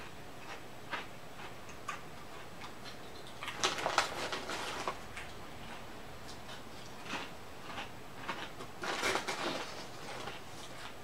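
Crunching of Lay's potato chips being chewed: dense crisp crackles, loudest in two spells about four and nine seconds in. Near the end the foil chip bag rustles as a hand reaches into it.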